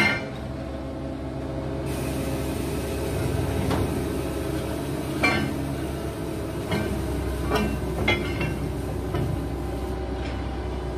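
Heavy diesel engine running steadily, with a sharp metal clank right at the start and several lighter metallic knocks and clinks scattered through.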